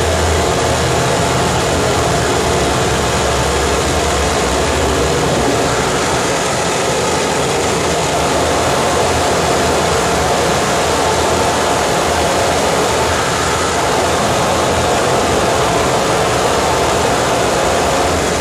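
Harsh noise from a live rig of effects pedals and electronics: a loud, dense, unbroken wall of distorted noise spread from low to very high pitch, with a heavier low drone underneath.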